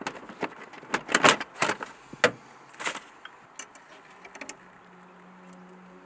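Plastic battery cover panel in a car's trunk being unclipped and pulled away: a run of sharp plastic clicks and knocks, then a few lighter ticks before it goes quiet.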